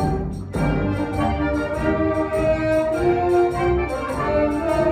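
Symphony orchestra of strings, brass and woodwinds playing live, with a brief lull about half a second in before the full ensemble comes back in on sustained chords.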